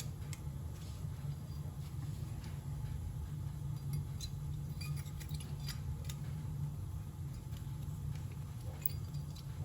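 Scattered light metallic clicks and clinks of brake parts and tools being handled while new pads are fitted to a disc brake caliper, over a steady low hum.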